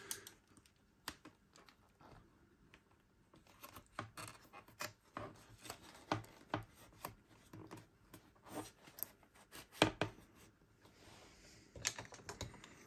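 Faint, irregular clicks, taps and rubbing of fingers working a new rubber seal into a Thermomix's white plastic cover, with one sharper click about ten seconds in.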